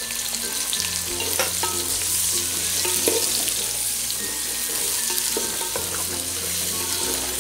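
Sliced onions and green chillies sizzling in hot oil in an aluminium pot, stirred with a wooden spatula that scrapes and knocks now and then against the metal. Soft background music with held bass notes runs underneath.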